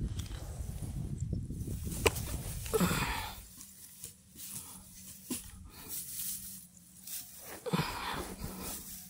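Rustling and handling noise, with one sharp click about two seconds in and two short breathy puffs, about three and eight seconds in.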